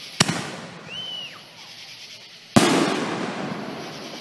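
Aerial firework launched from the ground: a sharp launch crack, then about two and a half seconds later a loud burst high up that echoes and fades away over a second or more.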